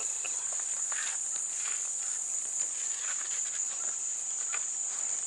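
Steady high-pitched chorus of crickets, an unbroken shrill drone.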